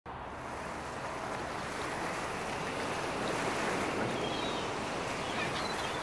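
Steady rushing noise, like wind or distant surf, slowly growing louder, with a few faint high chirps around the middle.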